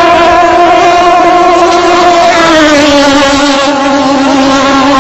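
Racing longtail drag boat engine running hard: a loud, steady, high-pitched drone whose pitch drops a step about two and a half seconds in.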